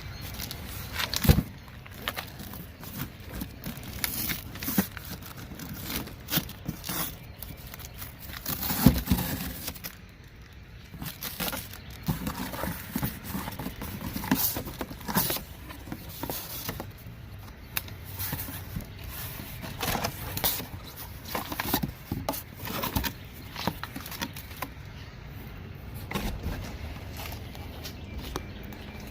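Handling noises from a large truck engine air filter being worked in and out of its housing: scattered knocks, scrapes and crinkling. The loudest knocks come about a second in and around nine seconds.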